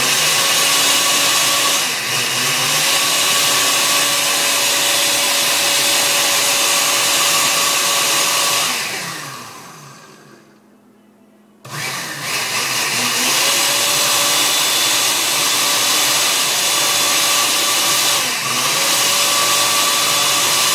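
Countertop blender puréeing tomato, onion and garlic, the motor running loud and steady. It winds down and stops about nine seconds in, then starts again about twelve seconds in, its pitch climbing as it comes up to speed.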